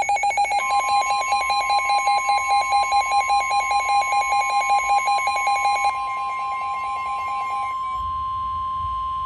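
NOAA Weather Radio's steady 1050 Hz warning alarm tone, sounding for a severe thunderstorm warning. For about the first six seconds a rapid electronic beeping is laid over it; after that the steady tone sounds alone.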